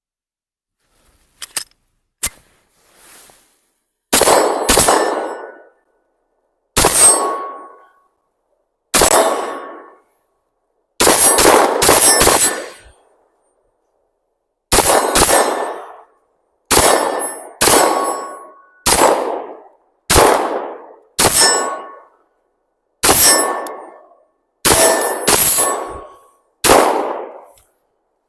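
CZ P-10 9mm pistol fired about twenty times, single shots and quick strings of two to four, each report trailing off in a ringing tail over about a second. A couple of faint clicks come before the first shot.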